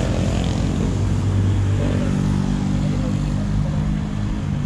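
Road traffic: a motor vehicle's engine running with a steady low hum.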